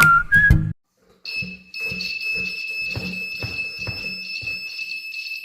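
Homemade earthquake alarm's buzzer sounding one steady high-pitched alarm tone, set off because the pendulum ball has swung against the steel plate as the desk is shaken. Irregular knocks and rattles from the shaking desk accompany it and stop near the end.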